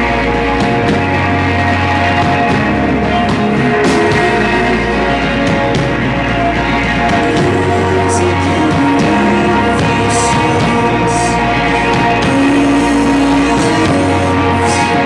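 Live post-rock band playing loud: layered sustained electric guitar chords over a low bass line that shifts note every few seconds, with cymbal hits now and then.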